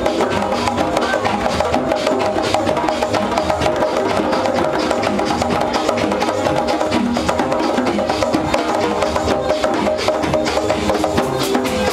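Live drummers playing a fast, busy pattern of sharp percussion strokes over loud dance music with steady held notes.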